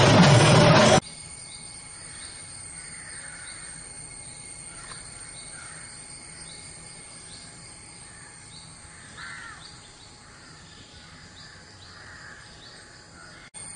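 Loud music cuts off suddenly about a second in, leaving outdoor birdsong: one bird repeats a short, high, falling chirp about once a second, with a few lower, harsher calls now and then.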